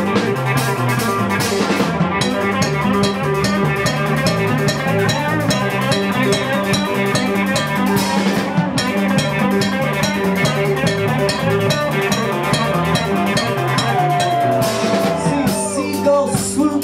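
A live rock band playing an instrumental break: a drum kit keeps a steady beat with regular cymbal strokes under a walking bass line and guitar. A guitar bends up into a note near the end.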